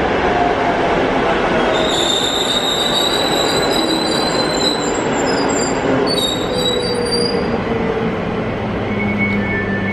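Newag Impuls 2 electric multiple unit pulling in and braking to a stop: a slowly falling electric whine from the traction drive over steady running noise, with high squealing from about two seconds in until about seven seconds in as it slows.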